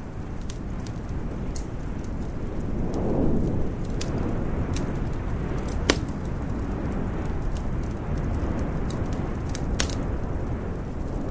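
Wood fire in a fireplace crackling, with scattered sharp pops and one louder pop about six seconds in, over a steady low rumble.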